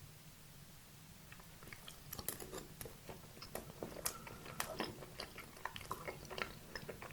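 Close-miked mouth sounds of someone eating a soft dessert: quiet at first, then from about two seconds in a steady run of wet chewing clicks and smacks.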